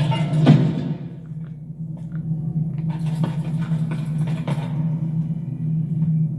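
A steady low mechanical hum with a few scattered knocks and clicks over it.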